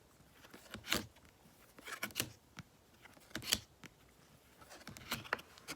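Photocards being handled and sorted by hand: a handful of light, sharp clicks and snaps with short pauses between them.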